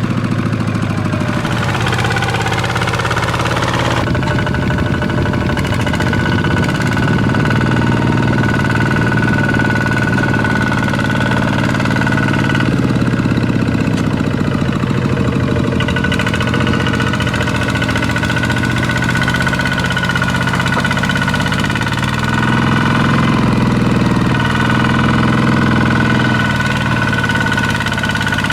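Walking tractor engine running continuously, its speed and pitch shifting a few times.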